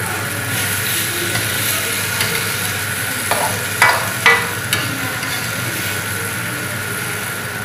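Sliced lotus root sizzling in a wok as a spatula stirs and scrapes it around the pan, with a few sharp clinks of spatula against wok about halfway through.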